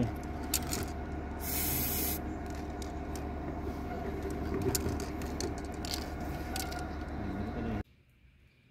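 Aerosol spray-paint can hissing in short bursts, with a few light clicks, over a steady low machine hum. The sound cuts off suddenly near the end.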